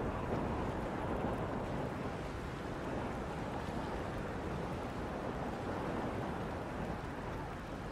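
Steady rushing noise of wind over open water, even and without any tone, fading slightly near the end.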